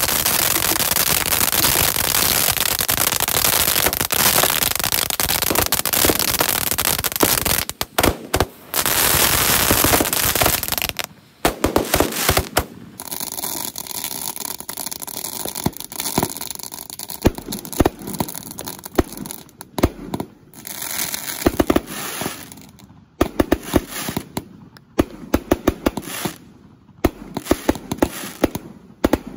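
A bank of ten 1.2-inch 'bazooka' roman candles firing together. A loud, dense hiss from the spark spray runs for about the first eleven seconds, dropping briefly near eight seconds. After that comes a rapid, irregular string of sharp pops and cracks as the shots launch and burst.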